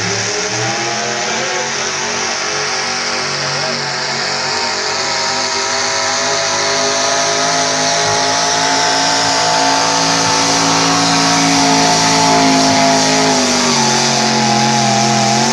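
Modified pulling tractor's engine at full throttle, dragging a weight-transfer sled down a dirt track. The engine note climbs slowly as the pull goes on, then drops about thirteen seconds in.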